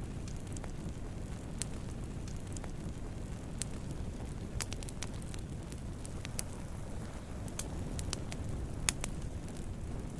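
Wood campfire burning with a steady low rumble and scattered sharp crackles and pops, one loud pop about nine seconds in.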